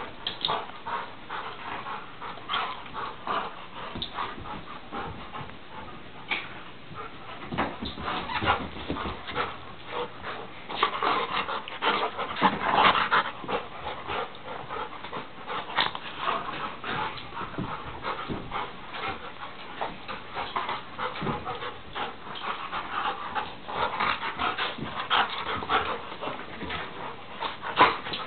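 Two dogs play-wrestling: panting and whimpering, amid a dense run of short, irregular noises from the tussle.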